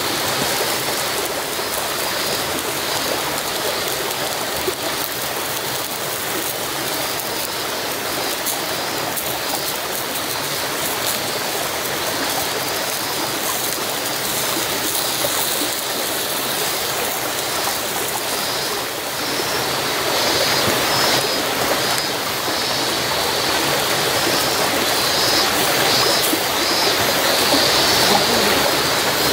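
Mushrooms sizzling in a hot pan over a campfire: a steady frying hiss that grows a little louder about twenty seconds in.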